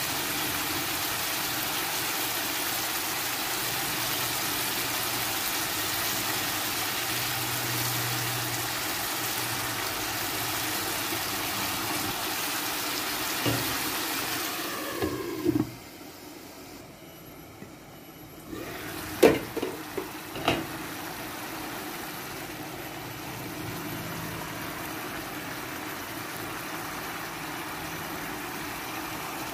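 Chicken pieces simmering in soy sauce in a nonstick pan, a steady bubbling hiss. About halfway through the sound drops away briefly, then come a few sharp clinks of pan or utensils, and the simmer goes on more quietly.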